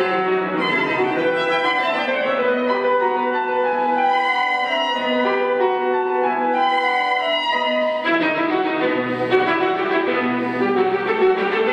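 Instrumental background music with a violin playing a slow melody of held notes.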